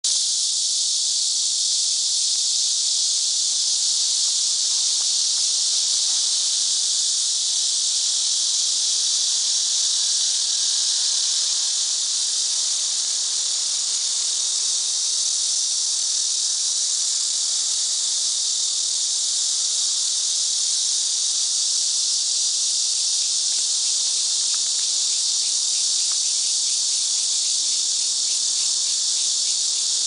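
Cicadas in a loud, steady chorus: a continuous high, hissing drone. A faint rapid pulsing joins in lower down near the end.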